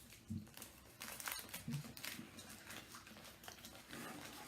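Paper wrapper around a chicken gyro crinkling and rustling in the hands, in many short crackles.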